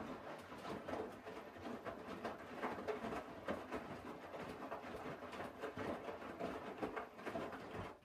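Hoover Dynamic front-loading washing machine in its wash phase: the drum tumbling wet laundry, with water sloshing and clothes flopping in an irregular patter. The tumbling stops right at the end as the drum pauses.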